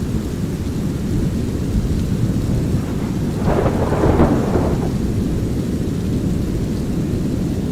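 Thunderstorm soundscape: a steady deep rushing of brown noise and light rain, with a burst of thunder about three and a half seconds in that lasts a second or so.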